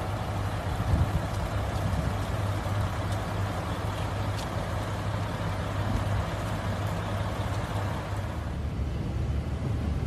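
KiHa 183 series diesel railcar's engine running, a steady low drone.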